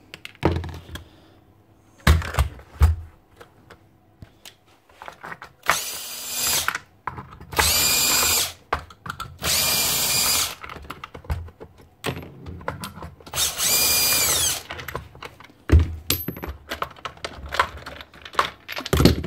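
Cordless drill-driver run in four short bursts of about a second each, backing out the screws that hold the top cap on a nail gun; each burst rises in pitch and then holds a steady whine. A few sharp knocks come between the bursts.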